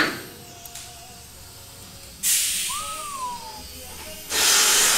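Two bursts of hissing, like air or gas released under pressure. The first starts sharply about two seconds in and fades; the second starts near the end and holds steady. Between them a short whistle-like tone rises and then falls.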